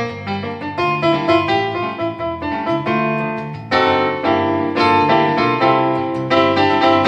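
Violin and Roland digital accordion playing a lively instrumental tune, with quick notes over chords; the music swells louder and fuller about halfway through.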